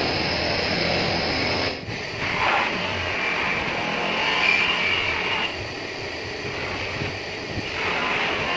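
Bench buffing motor running with an aluminium motorbike wheel hub pressed against its spinning wheel, a steady rasping whir of metal being worked. The sound breaks off briefly about two seconds in and resumes with a slightly different tone.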